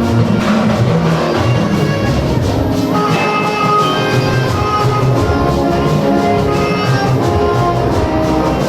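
Instrumental music playing steadily, with held notes and drums.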